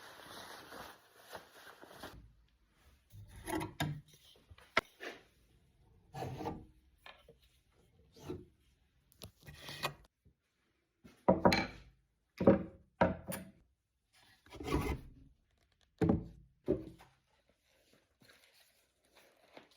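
Wood being worked by hand: a series of separate rubbing, scraping strokes with short pauses between them, loudest in the middle.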